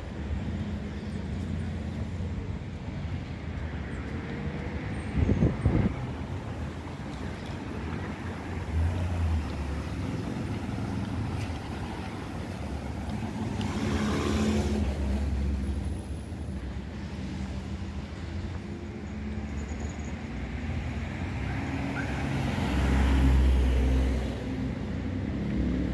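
City street traffic: a steady hum of passing cars and other vehicles, with louder vehicles going by about halfway through and again near the end. A couple of sharp knocks sound about five seconds in.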